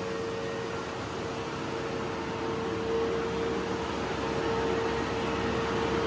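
Heavy farm machinery running steadily with one constant tone over a rushing noise, as a tipping grain trailer's body rises and wheat pours out onto the heap.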